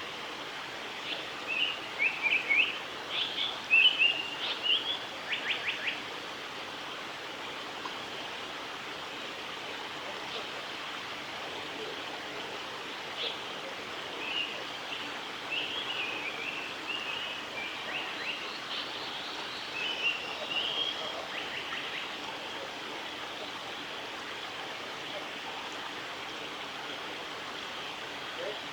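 Female Japanese paradise flycatcher singing: loud clusters of short, quick chirping notes in the first few seconds, ending in a fast rattle, then softer phrases around the middle. A steady hiss runs underneath.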